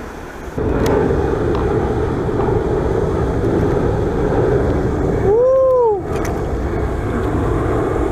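Steady rushing noise of fast shallow creek water and wind on the microphone, starting abruptly about half a second in. About five seconds in, a short clear tone rises and falls in pitch.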